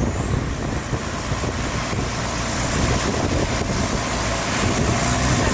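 Motorboat engine running steadily while under way, with wind on the microphone.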